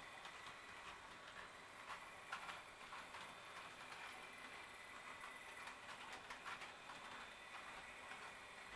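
Faint, irregular clicking of an HO-scale Roco model train running over the layout's rail joints, with a faint steady high whine underneath.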